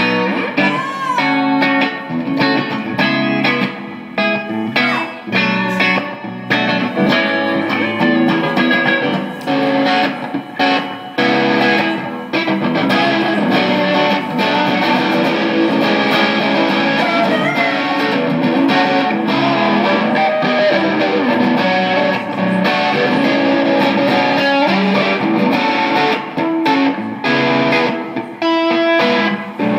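Live amplified rock music led by electric guitar, an instrumental stretch with no singing.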